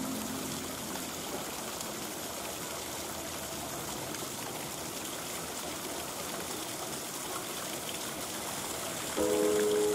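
Steady rushing water noise, even and unbroken. Piano-like music with held notes fades out at the start and comes back in about nine seconds in.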